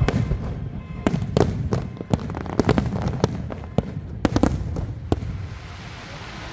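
Aerial firework shells bursting in a rapid string of bangs and sharp cracks, coming in quick clusters and thinning out about five seconds in.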